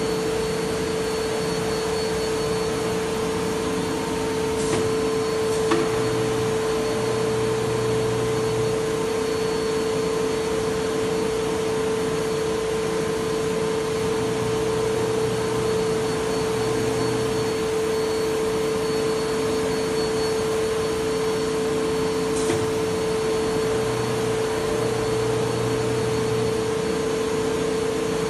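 Alca 2030 ACT CNC router running, a steady whine over an even rush of air from the spindle and its extraction. A lower hum comes and goes three times, a few seconds each, and there are a couple of light clicks.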